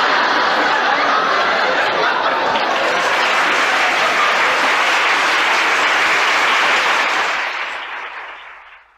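Live audience applauding, a dense steady clapping that fades away over the last couple of seconds.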